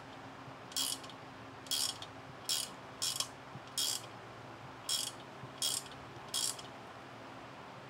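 Socket ratchet wrench clicking in about eight short bursts, one swing of the handle each, as a nut is tightened down on a bolt through one of the dolly's fixed, non-spinning wheels. The clicking stops a little over a second before the end.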